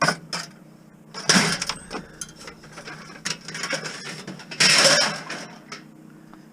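Scrap metal being handled: a sharp knock, then clattering and scraping with two louder rattling scrapes, about a second in and again near five seconds.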